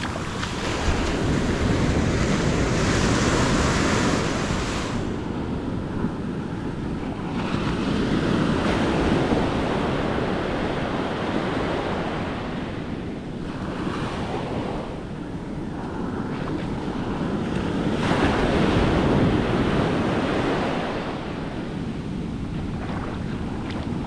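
Atlantic surf washing up a sandy beach, the foam hissing in swells as each wave runs up the shore and drains back, rising and falling about three times. Wind rumbles on the microphone underneath.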